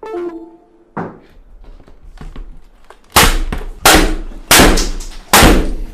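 A computer keyboard slammed hard against a desk again and again: a single knock about a second in, then from about three seconds four loud strikes, roughly one every 0.7 s.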